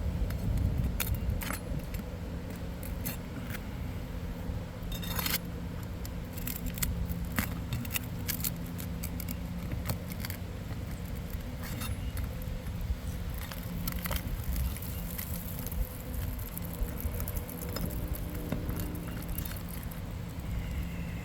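Irregular light metallic clinks and scrapes of hand tools working on roofing shingles, as in prying up nails, over a steady low rumble.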